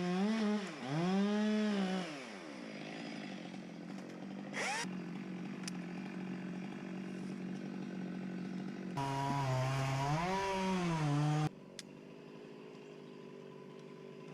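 Two-stroke chainsaw running at high revs, its pitch dipping and recovering as it is loaded in the cut, with a steadier stretch in the middle. The saw's sound stops abruptly about three-quarters of the way through, leaving a quieter background.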